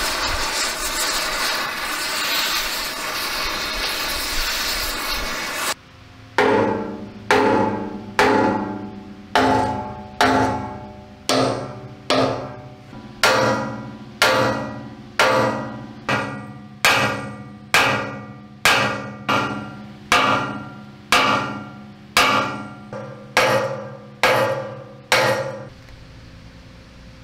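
A gas torch flame hissing steadily against steel, cutting off about six seconds in. Then about twenty evenly spaced ringing strikes follow, roughly one a second, over a steady low hum.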